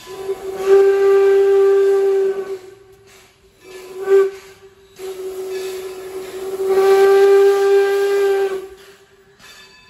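Steam whistle of Baldwin steam locomotive No. 26 sounding on one steady pitch: a long blast, a short toot, then another long blast that swells louder before it stops.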